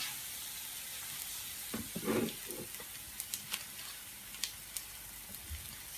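Pancake batter frying in plenty of hot oil in a pan: a steady sizzle with a few sharp crackles of spattering oil in the middle. A brief lower sound comes about two seconds in.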